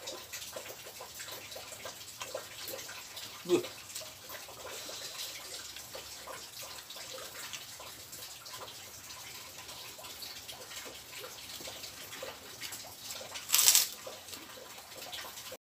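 Close-up wet eating sounds: a person chewing rice and fried fish with lip smacks and small clicks of the mouth. About three and a half seconds in there is a brief hum from the eater, and near the end a loud, short crunch as he bites into a kerupuk cracker.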